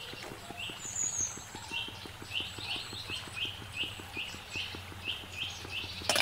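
Short chirping calls repeating about two or three times a second over a rapid low ticking pulse, from small animals such as birds, frogs or insects calling. Beneath them is the faint hiss of oil deep-frying.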